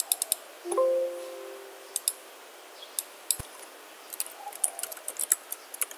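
Mouse clicks and computer keyboard keystrokes, with the key taps growing denser in the last couple of seconds. A short electronic chime of a few steady tones sounds just under a second in and fades over about a second; it is the loudest sound.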